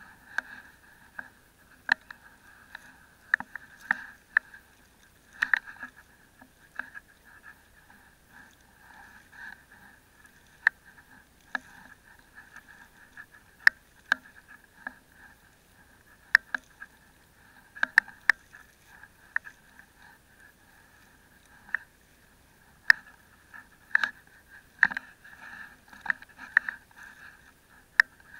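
Fishing net being hauled in by hand: irregular sharp clicks and knocks, one every second or two and bunched more closely near the end, as the mesh and its rope are pulled up and handled.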